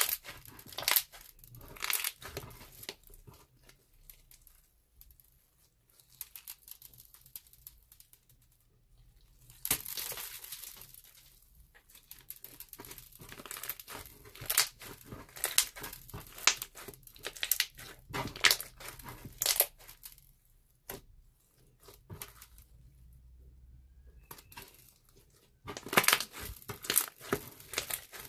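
Thick slime being squeezed and kneaded by hand, giving bunches of sticky clicks and pops, with a few quiet pauses.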